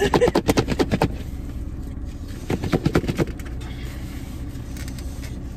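Close-up eating noises, crunching and clicking in two short flurries, over a steady low hum inside a car.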